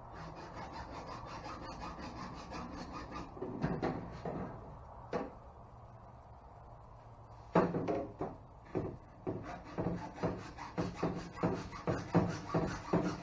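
Hacksaw cutting through 1.5-inch schedule 40 PVC pipe. After some light scraping and handling, the sawing starts a little past halfway, in even back-and-forth strokes about two a second.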